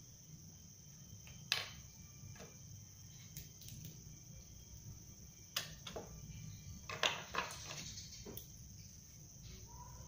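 Tools and small objects knocking and clicking as they are handled and set down on a wooden workbench, with sharp knocks about a second and a half in, around five and a half seconds, and a quick cluster near seven seconds. A steady high-pitched whine runs underneath.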